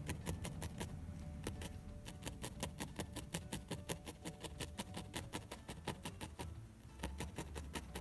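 A felting needle stabbed rapidly and repeatedly through wool and felt into a felting mat: a fast run of sharp clicks, about five or six a second, with a short pause about six and a half seconds in.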